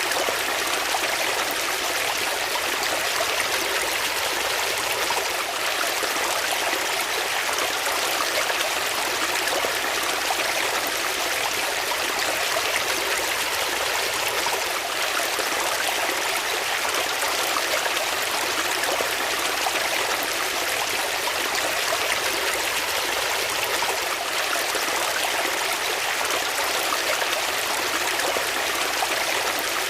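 Water flowing steadily in a stream, an even rushing and trickling that does not change.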